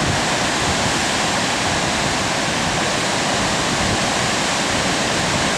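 Waterfall rushing: a loud, steady roar of falling water at Faxi (Vatnsleysufoss) on the Tungufljót river.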